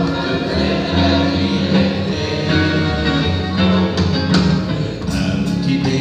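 Live pop band playing: drums, bass, electric guitar and keyboards, with steady bass notes under the chords and sharp drum hits in the second half.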